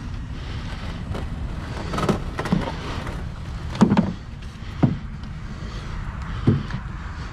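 A wooden oar knocking against the hull of a small aluminium boat while paddling: about five sharp clunks, the loudest a little before the middle, over a steady low rumble.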